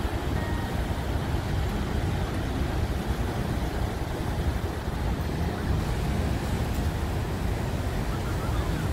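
Steady roar of Niagara Falls and the rushing rapids at its brink: a dense, unbroken rumble of falling and churning water.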